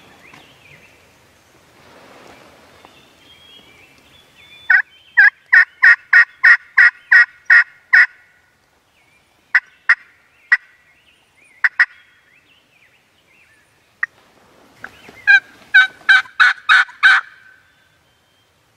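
Turkey yelping. A run of about ten evenly spaced yelps, roughly three a second, comes about five seconds in. A few single notes follow, then a second run of about eight yelps near the end.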